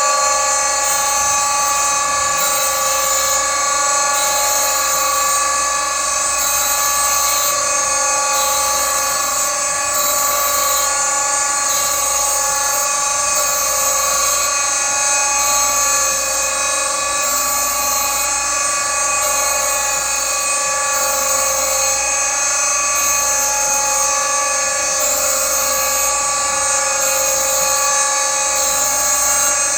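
Boyar Schultz 6x12 Challenger surface grinder running steadily, its spindle and wheel giving a high, unbroken singing whine.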